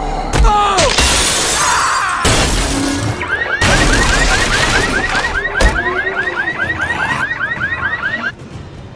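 Layered film sound effects of crashing and shattering over music, with a rapidly repeating electronic alarm whoop, about four to five rising pulses a second, that cuts off suddenly near the end.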